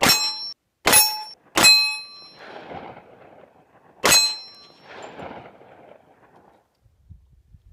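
.45 ACP pistol shots striking a 1/2-inch AR500 steel plate target, each hit ringing the steel with a clear clang. Three shots come quickly, under a second apart, then a fourth about two seconds later; the last two trail off in a lingering echo.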